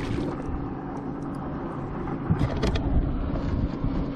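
Bow-mounted Minn Kota Ultrex electric trolling motor humming steadily on a bass boat, with low wind rumble on the microphone and a few light clicks about two and a half seconds in.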